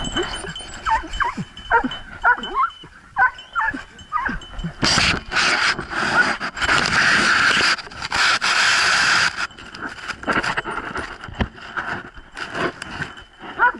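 Dogs whining: a run of high, bending cries in the first few seconds and one more near the end. In the middle is a loud stretch of rough noise lasting about four seconds.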